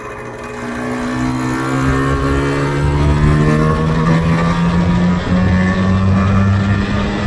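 Yamaha RZV500R's two-stroke V4 engine pulling under acceleration, its pitch climbing slowly and steadily as it gets louder over the first few seconds, then holding high. It changes abruptly right at the end.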